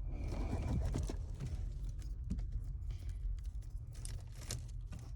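Hands working wires and plastic connector clips under a car's dashboard: scattered clicks, taps and rustling, busiest in the first second or so.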